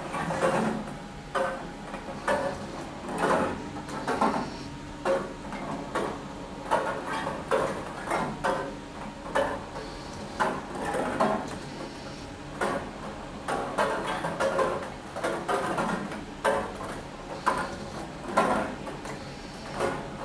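Meccano ball-lift mechanism running, with ping pong balls clicking and clattering against its metal strips and Archimedes screw: irregular light knocks, several a second, over a steady mechanical whirr.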